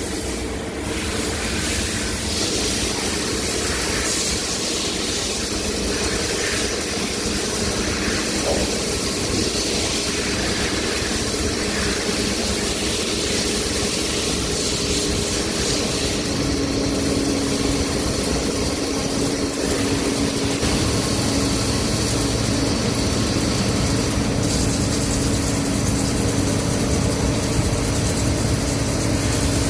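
CNC lathe running during outside-diameter turning: a steady machine hum with hiss. A steady higher tone joins about halfway through.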